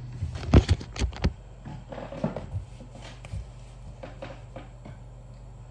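Handling noise from a phone being picked up and repositioned: a cluster of loud knocks and bumps about half a second to a second and a half in, then softer scrapes and taps. A steady low hum runs underneath.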